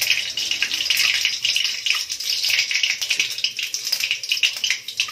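Mustard seeds sizzling and crackling as they hit hot mustard oil in a kadhai, the first step of a tadka; a dense hiss peppered with small pops, easing slightly in the second half.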